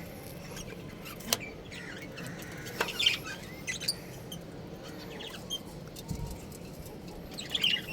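Budgerigars chirping in short, scattered calls, with a flurry of calls near the end and a sharp click about a second in.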